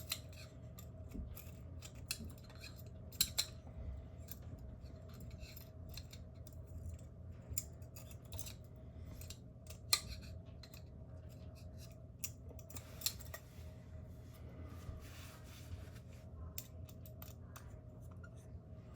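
Irregular clicks and light taps of small metal and plastic parts of a GU10 track light fixture being handled and fitted back together, with sharper clicks about three seconds in and near ten seconds, over a low steady hum.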